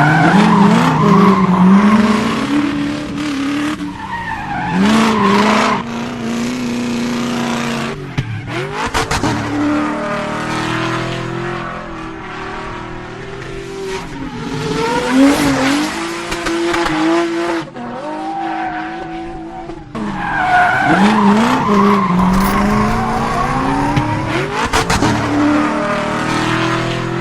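Car sound effect: an engine revving, its pitch climbing and falling again and again, with tyre squeals and skids.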